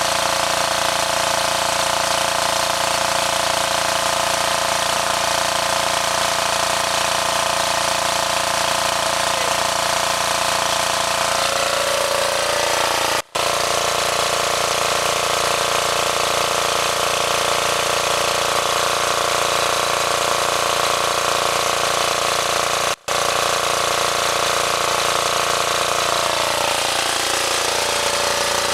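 Small diesel generator engine running steadily with a hard, rattly beat. Its speed shifts slightly about twelve seconds in and again near the end, and the sound cuts out for an instant twice.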